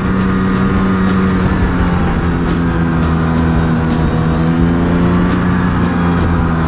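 Ski-Doo 550 snowmobile's two-stroke engine running at a steady speed while riding over snow, its pitch holding nearly constant, with scattered sharp ticks and rattles.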